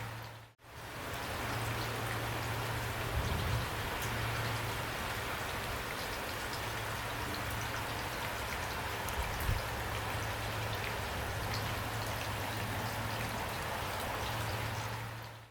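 Heavy rain falling steadily, a dense even hiss of drops. The sound dips briefly almost to silence about half a second in, then comes back.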